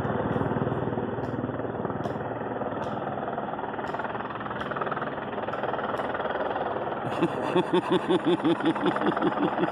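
Helicopter flying low overhead: a steady engine and rotor noise, and about seven seconds in the rotor's chop grows loud and distinct, a regular beat of roughly six pulses a second.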